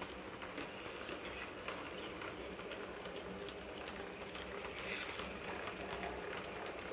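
Model railway train running on the layout: wheels ticking lightly over the track with a faint steady hum.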